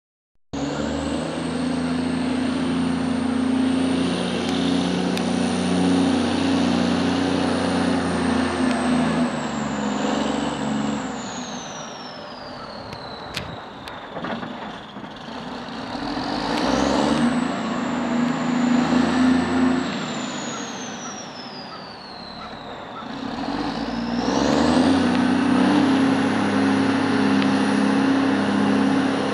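A 1986 Champion 740 motor grader's six-cylinder Cummins diesel engine running, easing off and picking up again twice. A high whine sinks as the engine eases off and climbs back as it picks up. The sound drops out briefly right at the start.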